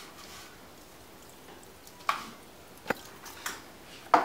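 Four short taps and knocks while salt is added to a pot of water and small kitchen bowls are handled; the last knock, near the end, is the loudest.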